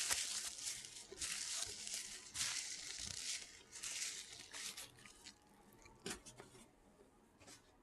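Paper food packaging crinkling and tearing in several bursts over about five seconds, then a few faint clicks.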